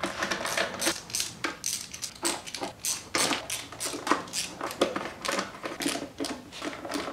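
Metal bolts and a hand tool being worked off a plastic timing belt cover: a run of irregular sharp clicks and clinks, several a second.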